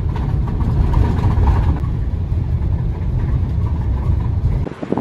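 Inside a moving bus: steady low engine and road rumble. It cuts off abruptly just before the end.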